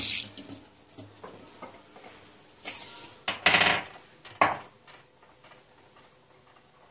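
A running tap stops right at the start, then kitchenware clinks and knocks on a stone countertop: a few light clicks, with short clatters near the middle, the loudest about three and a half seconds in, as a small ceramic spice pot is picked up and handled.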